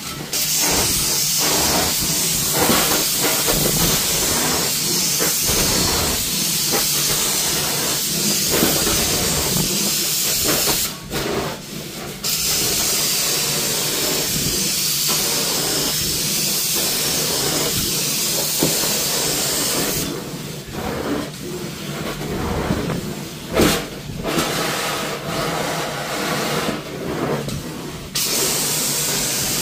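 Hot water extraction carpet wand spraying and sucking as it is drawn over carpet: a steady hiss over the rush of the vacuum. The hiss drops out twice, briefly about a third of the way in and for several seconds later on, leaving the suction alone, and there is a short knock about three-quarters of the way through.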